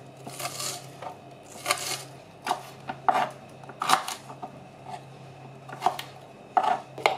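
Kitchen knife chopping onion and carrot on a plastic cutting board: about eight irregular, sharp knocks of the blade striking the board.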